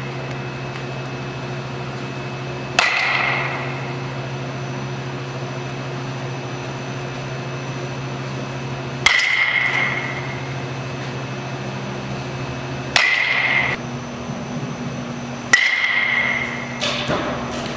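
Baseball bat hitting pitched balls in batting practice: four sharp, ringing hits a few seconds apart, over a steady low hum.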